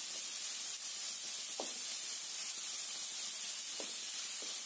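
Chopped onions, green chilli, ginger, garlic and curry leaves sizzling gently in hot coconut oil, a steady hiss, with a few faint taps from a wooden spatula stirring them.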